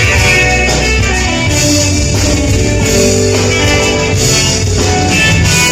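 Loud band music led by guitar over a steady bass line.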